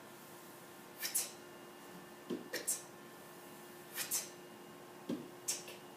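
Short swishing sound effects marking the strokes of a handwritten uppercase H. There are about four separate hissy swishes, roughly a second apart, and some carry a brief low squeak.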